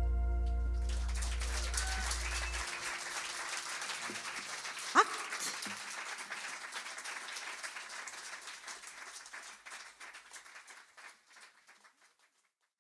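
The last held chord of the song dies away, and a small audience claps. About five seconds in there is a short, rising cry. The applause fades out gradually to near silence.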